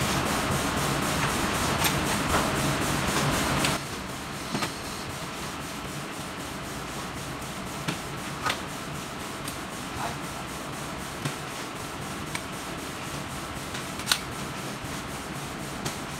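A rough rubbing noise that drops away about four seconds in. It leaves a steady hiss with scattered sharp clicks as a padlock and keys are handled at a metal gate.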